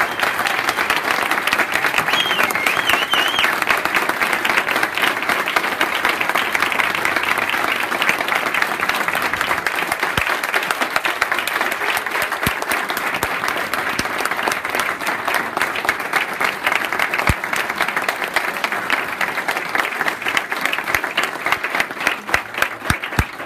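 Audience applauding steadily, with a brief high whoop about two seconds in. Near the end the clapping thins out to a few separate claps.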